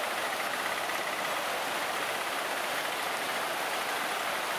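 Steady rush of shallow floodwater streaming across a road.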